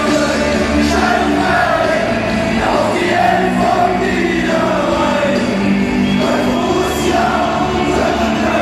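A large crowd of football supporters singing a chant together, loud and close, many voices in unison over a steady crowd rumble.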